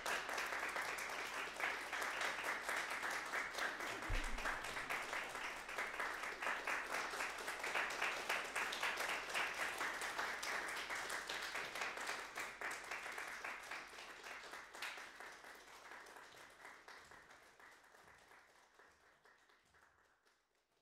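Audience applauding, the clapping thinning out over the second half and fading away to nothing near the end.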